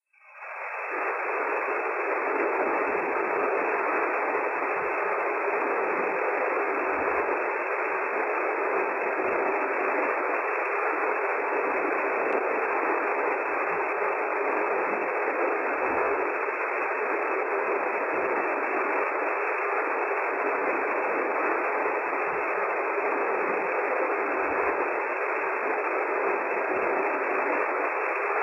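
Teknox Rotor S 2B basket washing machine in its washing phase: the pump drives washing liquid through the spray jets inside the closed chamber, making a steady, even hiss. It builds up over about a second at the start and then holds level.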